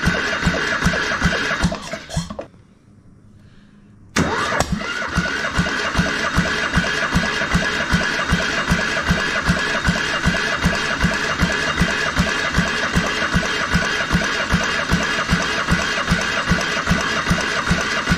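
Electric starter cranking a Farymann diesel engine over without it firing, with an even pulse as it turns, to draw fuel up through the injection pump for bleeding. Cranking stops about two seconds in, then starts again about two seconds later and keeps going.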